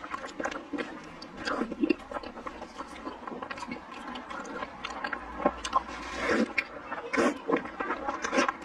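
Close-miked wet eating sounds: biting, sucking and chewing on sticky, sauce-coated braised pig skin, with frequent small smacks and squelches.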